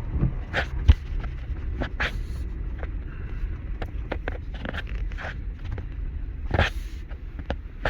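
A cattle herd moving past: many scattered hoof clicks and scuffs over a steady low rumble, with a loud thump about a second in and a few short hissing bursts.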